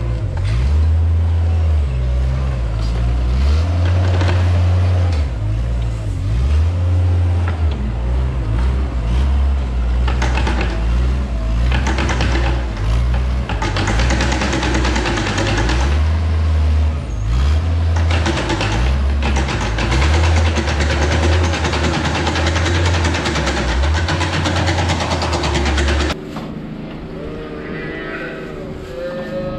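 Weidemann compact loader's diesel engine running, its revs rising and falling as it works through straw. It cuts off abruptly near the end, and a moo follows.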